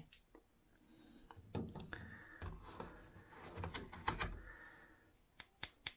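Hands unpacking small accessories from a cardboard box with a foam tray: soft rustling with scattered light clicks and knocks, and a few sharper clicks near the end.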